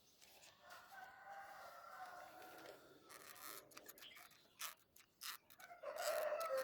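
Faint animal calls with a held pitch, one lasting about two seconds near the start and another near the end, with a run of light clicks and taps between them.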